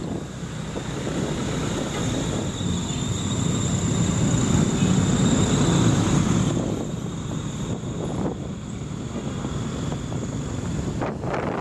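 Motorcycle engine and road noise from a ride through town traffic. The rumble swells louder for a couple of seconds around the middle, then settles back.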